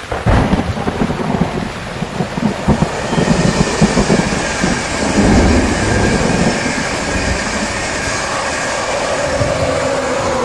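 Passenger train passing at speed on track: a heavy low rumble with rapid, irregular wheel clatter over the rails starting suddenly at the beginning, settling after a few seconds into a steady rushing hiss as the carriages go by.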